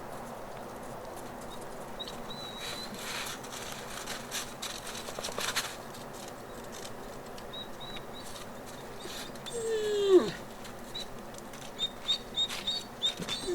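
Captive wolves' outdoor pack area: a wolf gives one short call that slides down in pitch about ten seconds in, over repeated high chirps from small birds and some scattered rustling.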